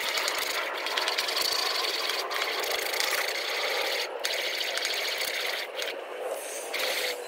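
Oil and popcorn kernels sizzling on a hot Blackstone flat-top griddle under a stainless steel dome lid that is slid around to keep the kernels moving: a steady hiss with scraping. The kernels are heating but not yet popping.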